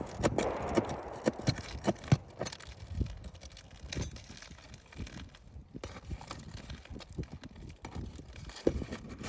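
Hand work on a shingle roof: irregular light knocks and clicks, with a scraping rustle over about the first second, then scattered taps.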